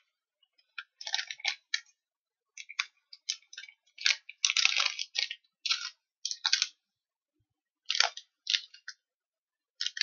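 Plastic sweet wrapper crinkling as it is handled and opened, in short irregular crackles with pauses between them.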